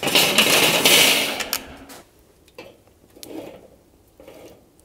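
Charcoal tumbling into a charcoal kettle barbecue to bank the coals on two sides: a dense clatter and rattle of the coals for about a second and a half, then a few faint knocks.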